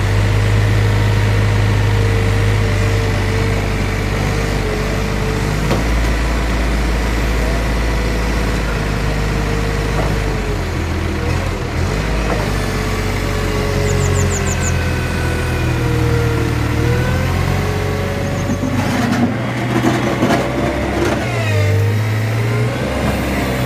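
Kramer Allrad 1245 compact telehandler's diesel engine running and revving up and down as the hydraulic boom lifts and tips a loaded bucket. Near the end there is a stretch of knocking and clatter as the bucket works into material.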